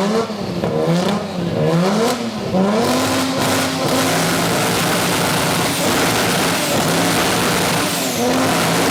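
Engine with a loud exhaust, revved in about three quick rises and falls, then held at steady revs, with a brief dip in pitch near the end.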